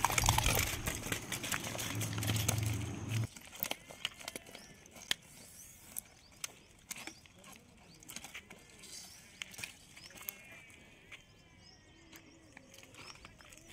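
A snakehead fish thrashing and splashing at the water's edge as it is dragged ashore, loud for about three seconds. Then scattered light taps and rustles as it flops on dry twigs and leaves, with faint bird chirps.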